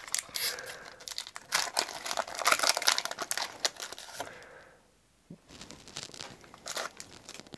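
A foil Pokémon booster pack wrapper crinkles and is torn open for about four and a half seconds. After a brief pause there is fainter rustling as the cards are slid out of the pack.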